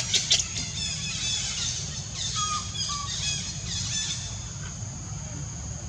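Baby monkey squealing in a rapid string of high-pitched, wavering cries, after a few sharp clicks at the start, over a steady high whine.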